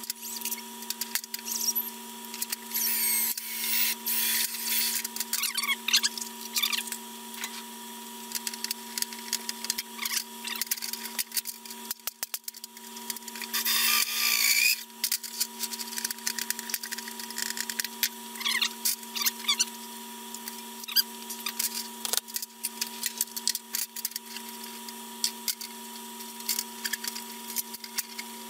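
Cordless drill running in short bursts against the sheet-aluminium tank, the longest and loudest about fourteen seconds in, among the clinks and clatter of tools and fasteners on the aluminium. A steady hum runs underneath.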